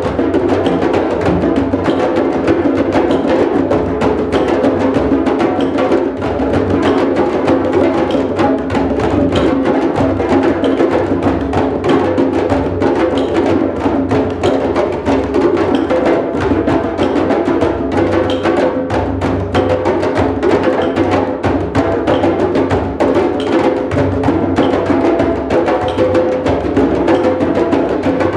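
Drum circle: many hand drums and other percussion played together in a dense, steady rhythm, with a steady low tone held underneath.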